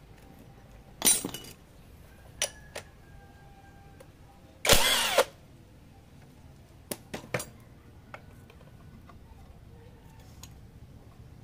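Metal hand tools and engine parts clinking, knocking and scraping as a Honda Supra Fit New motorcycle engine is dismantled. There are a few sharp clicks, and two louder bursts of about half a second, about one second and five seconds in.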